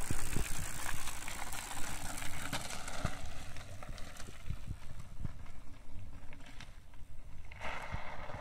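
Mountain bike with hard, overinflated tyres rolling over loose gravel, a gritty crunching with scattered small clicks. It is loudest as the bike passes at first and fades after about three seconds as the bike moves away.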